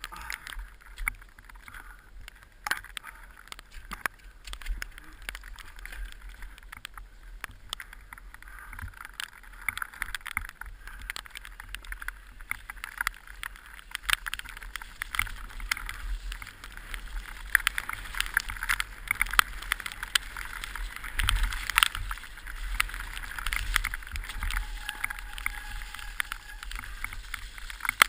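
Orange 223 downhill mountain bike rattling down a wet, slippery trail, heard from a helmet camera: tyres on wet ground, frame and chain clattering, and many sharp knocks over roots and rocks, with wind on the microphone. It gets louder from about halfway.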